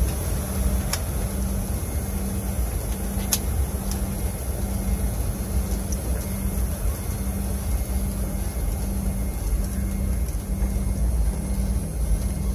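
Jet airliner's cabin noise while taxiing: a steady low rumble of the engines with a thin, high, steady whine. Two short clicks come about one and three seconds in.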